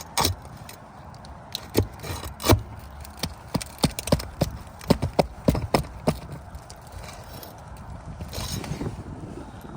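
Tools and hands working on asphalt roof shingles: a run of sharp, irregular clicks and knocks over the first six seconds or so, then softer scraping toward the end.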